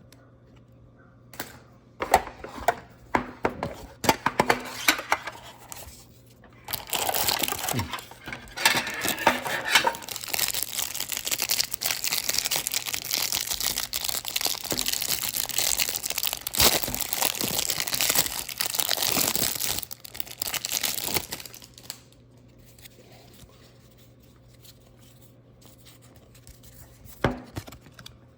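Wrapping of a trading card pack being torn open and crinkled. Scattered crackles for a few seconds give way to about fifteen seconds of continuous crinkling, followed by a pause and one more crackle near the end.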